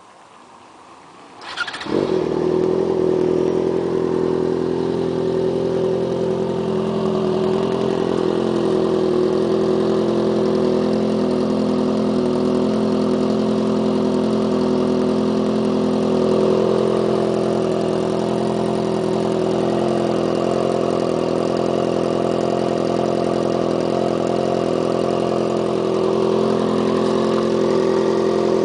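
Yamaha XJ6 motorcycle's inline-four engine starting: a brief crank about a second and a half in, then it catches and runs loud and steady at idle.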